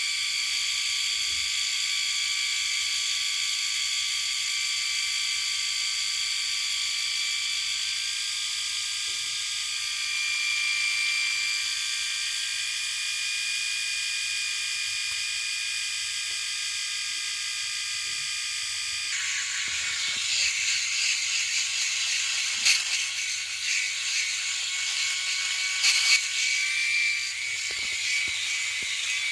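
Electric shaver running with a steady high-pitched buzz. About two-thirds of the way through the buzz turns rougher and noisier, with a couple of sharp clicks.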